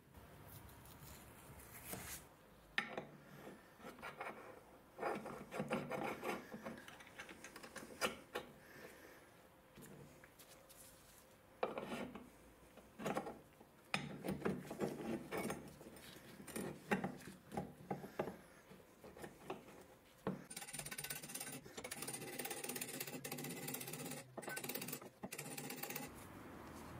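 Metal parts of a cast-iron butter churn stand clinking, knocking and scraping as a steel shaft and gear wheel are fitted by hand. Near the end comes a close run of light hammer strikes on a punch at the shaft collar.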